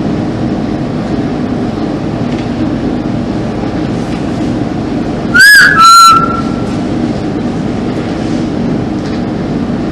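Two brief, loud whistle-like tones about halfway through, the first bending in pitch and the second held level, over a steady background hum and hiss.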